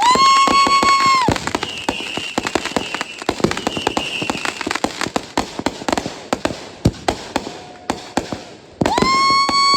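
Fireworks crackling and popping, with two long, high, steady whistles that cut off abruptly, one at the start and one near the end.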